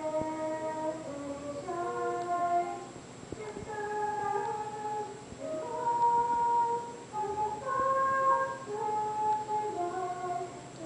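A girl singing a slow melody of held notes, with a flute playing along.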